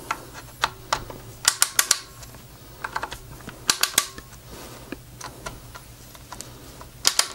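Torque-limiting screwdriver clicking in short runs of sharp clicks as its clutch slips, a sign that the scope rail screws have reached the set torque of about 8 inch-pounds.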